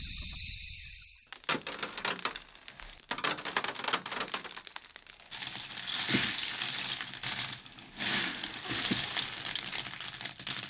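A high steady tone that stops about a second in, followed by dense, irregular crackling and crinkling clicks that thicken about five seconds in.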